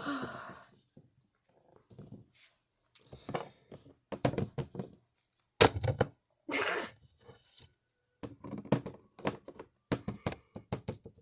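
Harsh coughing and retching sounds, voiced by a person for a toy character who coughs up blood, in a string of short bursts. Sharp clicks come near the end.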